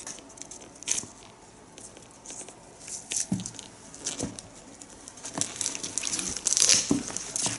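Thin protective plastic film being peeled off a shoe's metal buckle and handled, giving irregular crinkling and rustling with small clicks, busiest near the end.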